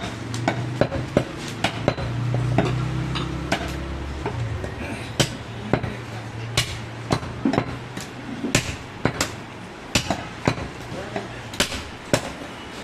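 Butcher's cleaver chopping goat meat and bone: sharp, irregular chops, about one or two a second.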